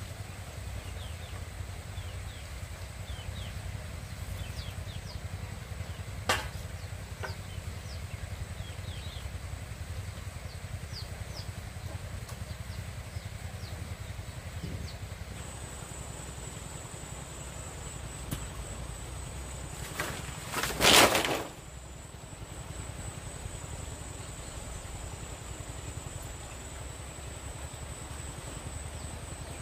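Outdoor ambience: a steady low rumble with scattered faint high chirps, joined about halfway by a steady high insect trill. There is one sharp click about six seconds in, and a loud rustling clatter about a second long a little after twenty seconds.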